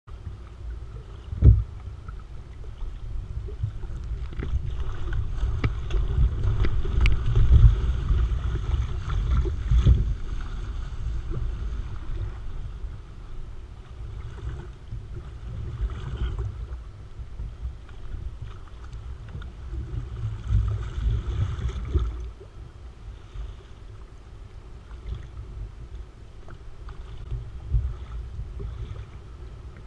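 Sea kayak being paddled: paddle blades dipping and splashing and water washing along the hull, with wind buffeting the microphone in gusts. A single sharp hit stands out about a second and a half in.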